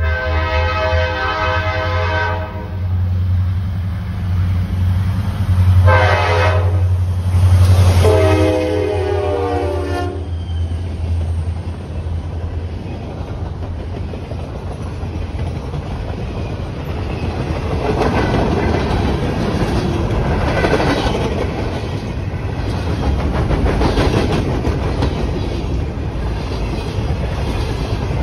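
Wheeling & Lake Erie diesel freight locomotive's air horn finishing the grade-crossing signal: a long blast ending about two seconds in, a short blast about six seconds in, and a final long blast until about ten seconds in. All of it sounds over the heavy engine rumble as the locomotives pass. Then the freight cars roll by with a steady clickety-clack of wheels over the rail joints, rising and falling in surges.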